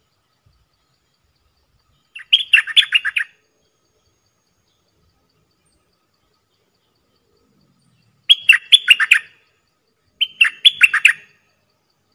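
Nok dok taeng singing three short phrases of fast, sharp notes, about two seconds in, eight seconds in and again two seconds later; the bird is a caged decoy used to lure wild birds of its kind.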